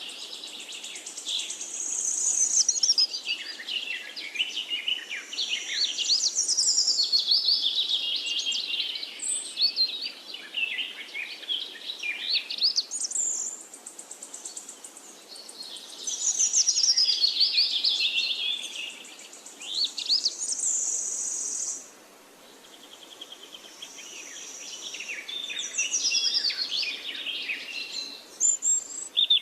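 Several songbirds singing, with long runs of fast chirps and trills in phrases a few seconds long, over a steady high buzz of insects.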